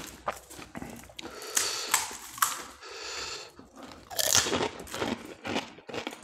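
Pani puri being eaten close to the microphone: crisp fried puri shells cracked open and bitten, with crunching and wet chewing. A string of sharp cracks, the loudest cluster about four seconds in as a whole puri is crunched in the mouth.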